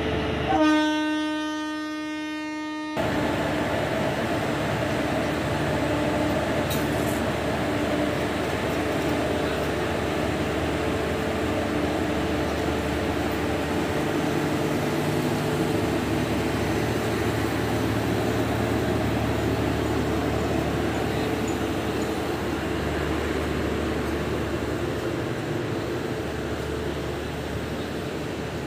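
A WAP-4 electric locomotive's horn sounds once, about half a second in, a single steady note that fades over about two seconds. Then comes the steady rumble of LHB passenger coaches rolling past on the track.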